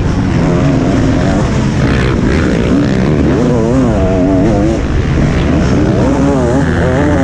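Motocross bike engine heard on board from the rider's helmet, revving up and down again and again as the throttle is worked through a corner and along the straight.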